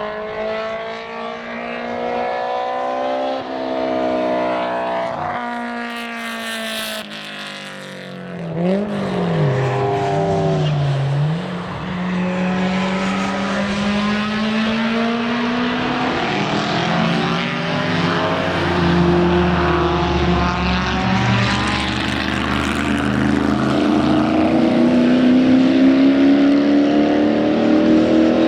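Racing car engines at speed on a circuit, their pitch climbing and dropping with gear changes. About a third of the way in comes a quick run of throttle blips on downshifts. Later an engine accelerates, its pitch rising and growing louder toward the end.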